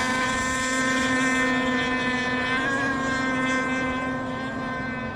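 Small two-stroke engines of radio-controlled racing boats running at racing speed out on the course, a steady high-pitched buzzing drone whose pitch drifts only slightly and eases a little near the end.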